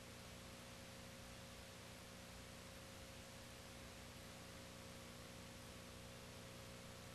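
Near silence: a steady faint hiss with a low electrical hum, unchanging throughout.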